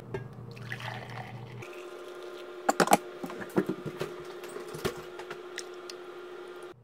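Light clicks and knocks of kitchen things being handled on a countertop while making coffee (a mug, a coffee carafe, a creamer bottle's flip cap), scattered through the middle, over a steady faint hum.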